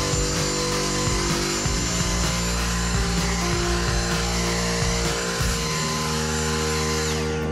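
Dyson V6 cordless handheld vacuum running with its motorised brush head on car carpet: a steady high whine over rushing suction noise, switched off near the end. Background music plays throughout.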